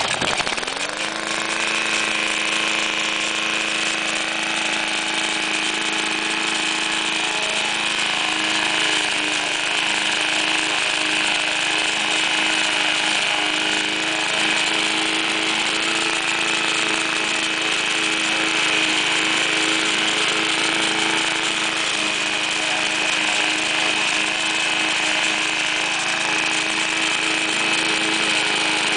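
Lawn mower engine just after starting: it picks up speed in the first second or so, then runs at a steady, even speed.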